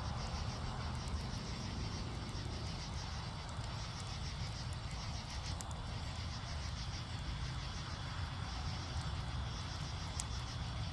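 Wood fire burning with a steady low rumble and a few sharp pops, over a steady high-pitched chirring.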